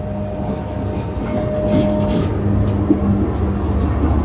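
Pakistan Railways diesel locomotive hauling passenger coaches past at low speed, its engine running with a steady low drone that grows a little louder as it draws level. A thin steady whine sounds over it and stops about two seconds in.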